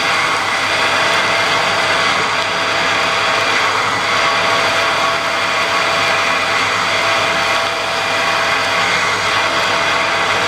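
Metal lathe running while a 32 mm spade drill bores into 1045 steel without a pilot hole: a steady, even cutting noise with a constant drive tone underneath. The drill is cutting well even without through-tool coolant.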